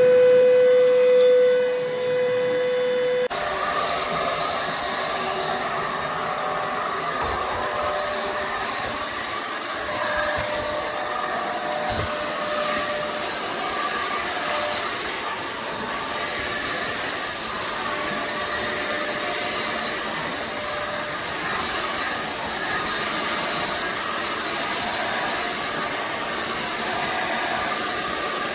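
A steady hum cuts off about three seconds in. A vacuum cleaner then runs steadily for the rest of the time, with a high motor whine.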